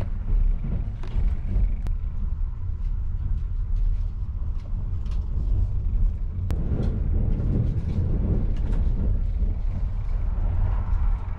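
Steady low rumble of the Kintetsu Hinotori limited express train running, heard from inside the passenger cabin, with a few faint clicks on top.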